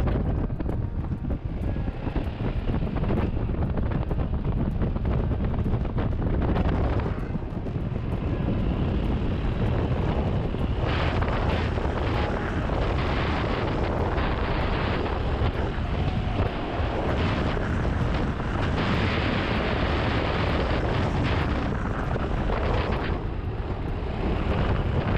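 Wind buffeting a camera microphone on a moving motorcycle, over steady engine and road noise, louder and hissier from about halfway through.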